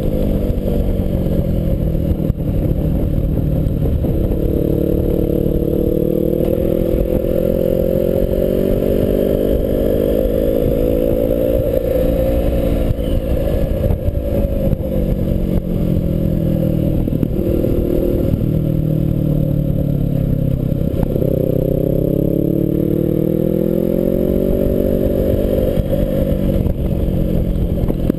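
BMW 650GS motorcycle engine running under way, its revs repeatedly rising and falling as it is ridden through a series of bends, over a steady low rumble of road and wind noise.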